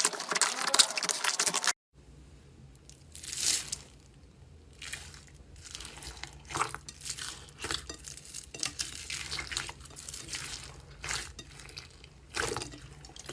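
Slime being squeezed and stretched by hand, making sticky crackling and popping sounds. A dense, loud crackle cuts off about two seconds in, and after a short gap the slime goes on with quieter, scattered crackly pops over a faint low hum.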